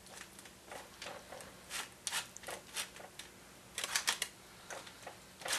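A fork scraping and tapping as a chicken and leek topping is spread over naan bread, with rustles of the parchment paper underneath: quiet, irregular scrapes, bunched a little after the middle.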